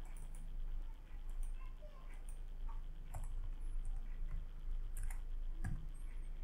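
Faint computer keyboard typing and mouse clicks: scattered soft clicks over a low steady hum.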